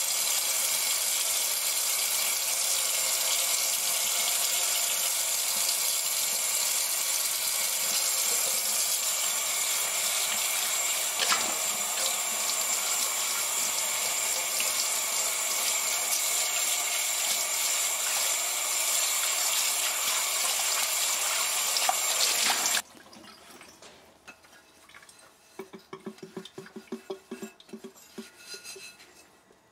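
Kitchen tap running steadily into a stainless steel sink while a cast aluminum skillet is scrubbed under it with a sponge; the water shuts off abruptly about 23 seconds in. A brief knock comes partway through, and faint rubbing follows near the end.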